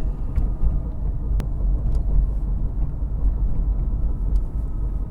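2008 Subaru Outback driving on the road, with a steady low rumble: the sign of another worn wheel bearing going out.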